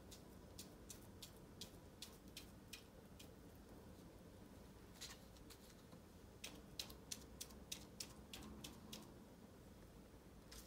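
Near silence, with faint, irregular light taps and clicks as a pom-pom held in a wooden clothespin is dabbed onto paper and into paint on a paper plate, coming more often about two-thirds of the way through.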